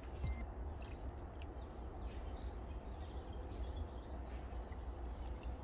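Small birds chirping and singing, many short calls scattered throughout, over a steady low rumble.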